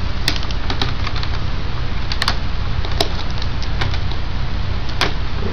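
Scattered light clicks and taps as a laptop's LCD panel and plastic screen lid are handled, about half a dozen of them, over a steady background hum.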